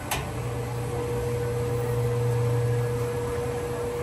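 Coin-operated front-loading laundromat washing machine: a click, then a steady electric hum as it starts letting water in again for the next stage of its wash cycle. The deeper part of the hum fades near the end while a higher steady tone carries on.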